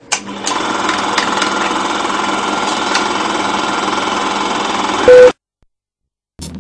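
Film projector running: a steady mechanical rattle and whir with scattered clicks and a low hum, cut off by a short, loud beep about five seconds in. A second of silence follows, then a low hum starts just before the end.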